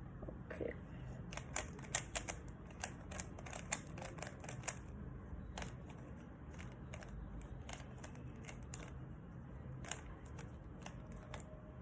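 Rubik's Cube being turned by hand: quick clicks of its plastic layers, a dense run of turns in the first few seconds, then scattered single turns.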